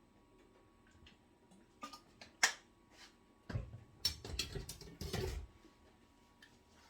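Kitchen handling noises: a few sharp clicks and a knock about two seconds in, then about two seconds of clattering and rubbing.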